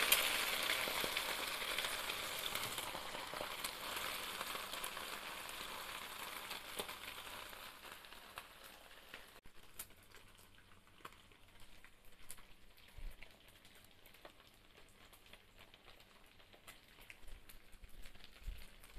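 Dried anchovies (ikan bilis) sizzling as they deep-fry in hot oil in a wok. The sizzle is loud at first and fades steadily over about the first half, then stays low with scattered crackles and clicks.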